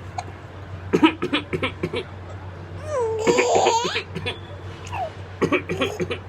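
Baby laughing: a run of quick bursts of laughter about a second in, a long high squeal around the three-second mark, then more laughter near the end.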